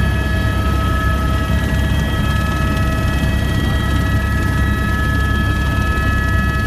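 Helicopter in flight, heard from inside the cabin: a steady, loud low drone of engine and rotor, with a constant whine above it.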